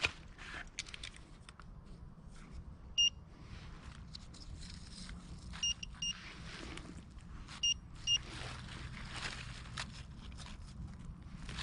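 Handheld metal-detecting pinpointer giving short beeps as it is probed into a freshly dug hole: one beep, then two quick pairs, signalling a metal target in the soil. Soil and dry leaves rustle and crunch as it is worked in the hole.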